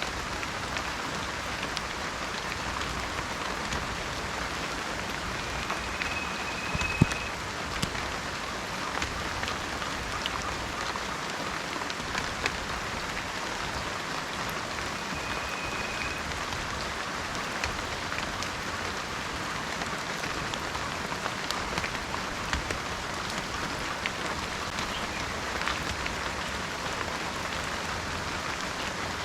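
Steady heavy rain falling in a tropical rainforest, with many individual drops striking close by and one sharp tap about seven seconds in. Two short, steady high whistled notes come through the rain, around six and fifteen seconds in.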